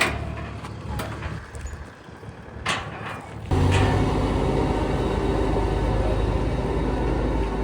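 A heavy diesel vehicle engine running steadily, cutting in suddenly about halfway through. Before that there are a few quieter knocks and one brief noisy burst.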